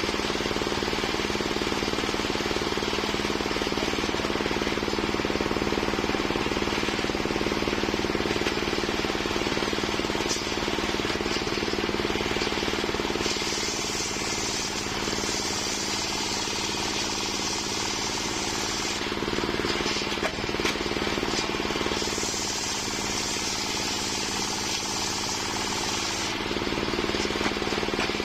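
Engine of a homemade circular-saw rig running steadily with a strong hum. Twice, for several seconds each time in the second half, the blade cuts through waru wood with a higher hiss.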